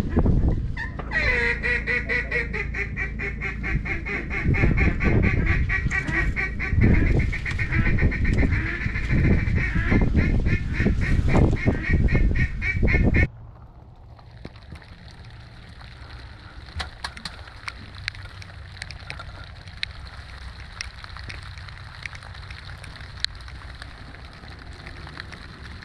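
A duck call blown in a long, loud, rapid rattling series to work ducks in, stopping suddenly about thirteen seconds in. After it, a faint steady patter with scattered ticks, like light rain.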